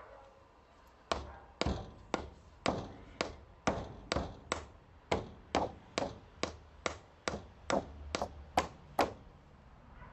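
A steady series of hand hammer blows on stone or concrete, about two a second. They start about a second in and stop shortly before the end.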